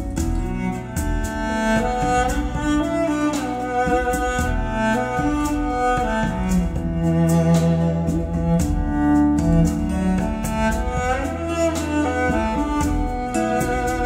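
Music played over Totem Forest floorstanding loudspeakers and recorded in the room. Long melody notes slide in pitch now and then over a steady bass, with light percussive ticks.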